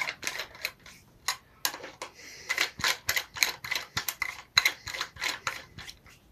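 Hand ratchet clicking in a quick, even run of about four clicks a second, with a brief pause about two seconds in, as the cylinder head bolts are run down.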